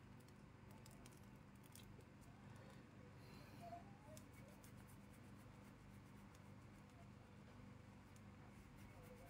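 Near silence: a faint steady low hum with scattered faint ticks, and a couple of faint short chirps about four seconds in.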